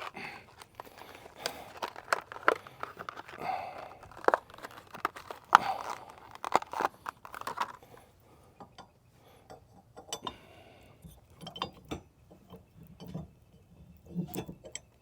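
Steel hitch ball mount being fitted into the receiver adapter: irregular metal clanks and clicks, busy for the first half, then fewer and further apart after about eight seconds.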